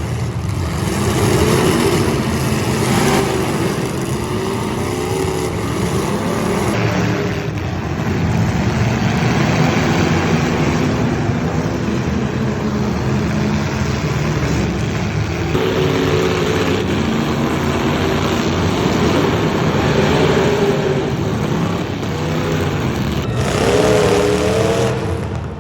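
Demolition derby car engines running loudly and revving up and down, with the sound changing abruptly a few times.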